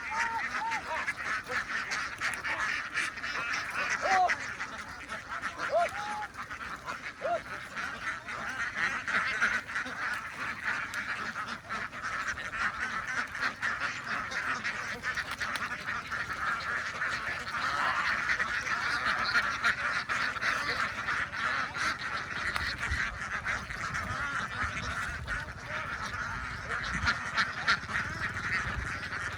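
A large flock of domestic ducks quacking all together, a dense, continuous chatter of overlapping calls.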